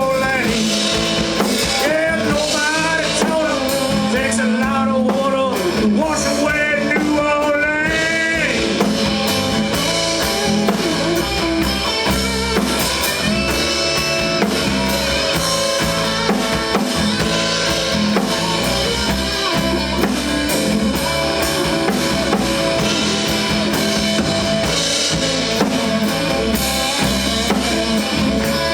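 A band playing an instrumental passage on drum kit and guitar, with a lead line bending up and down in pitch through the first eight seconds or so, then settling into held chords.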